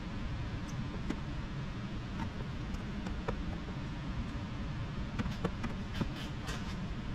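Faint scattered ticks and squeaks of a small squeegee card and fingertips working wet paint protection film down into a bumper recess, over a steady low room hum, with a cluster of them near the end.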